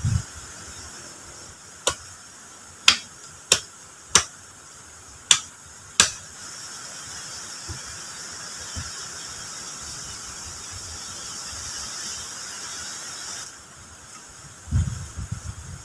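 Six sharp knocks, unevenly spaced over about four seconds, of a hand tool striking a wooden post.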